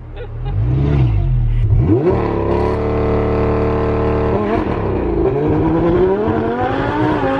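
Audi R8's 5.2-litre V10 through an Armytrix titanium valvetronic exhaust on a launch-control start. The revs sweep up and hold steady at launch revs for about two seconds, then drop briefly as the car launches and climb steadily as it accelerates.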